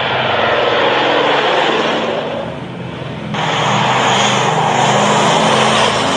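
Propeller aircraft engine of a low-flying WWII-style fighter plane passing overhead, a steady loud drone. About three seconds in it cuts abruptly to another pass.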